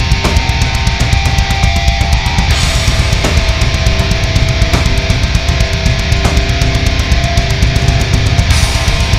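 Heavy metal music with distorted guitar and a fast, even drum beat.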